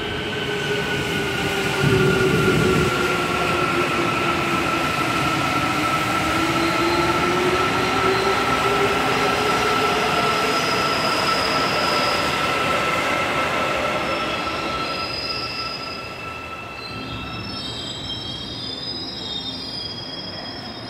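A Busan Metro Line 1 electric train pulls out of the station. Its traction drive whines in several steady, slowly gliding tones over the wheel and running noise, which grow louder about two seconds in and then fade away from about fourteen seconds on as the train leaves. Thin high squeals come in near the end.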